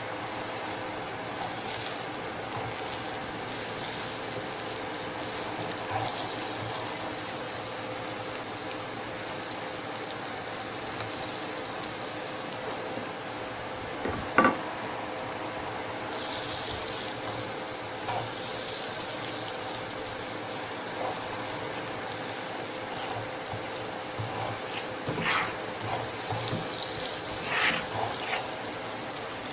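Butter and oil sizzling in a hot nonstick frying pan, with pork steaks frying in it near the end. The sizzle surges louder three times, and there is one sharp click about halfway through.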